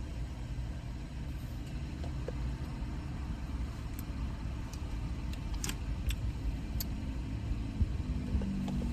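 Car engine and cabin rumble heard from inside the car, a steady low drone, with a few light clicks in the middle.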